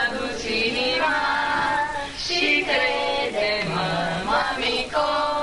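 Children singing a song together, with long held notes, played back from a video clip over a hall's sound system.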